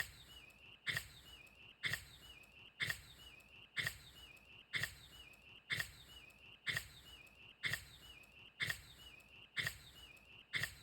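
A Shiba Inu sneezing over and over, about a dozen sharp sneezes evenly spaced about a second apart, each with a short high note after it.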